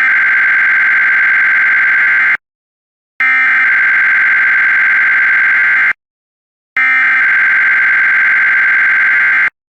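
Emergency Alert System SAME header: three identical bursts of harsh, buzzing digital data tone, each about two and a half seconds long with short silent gaps between them. They encode the coming alert's originator, event and affected areas at the start of a new alert.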